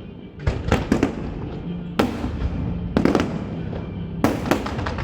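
Aerial fireworks shells bursting: about six sharp booms spread over the five seconds, some in quick pairs, each trailing off in a short rumble.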